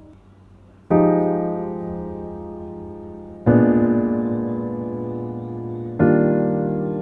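Background piano music: slow chords, each struck three times about two and a half seconds apart and left to ring and fade, after a quiet first second.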